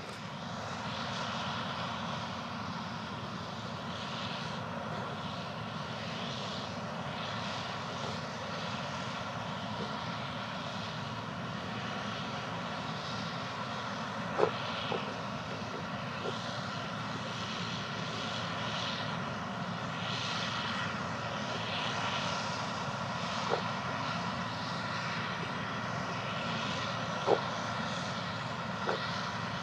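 Steady drone of a farm machine's engine running, with a few sharp clicks or knocks, the loudest about halfway through and near the end.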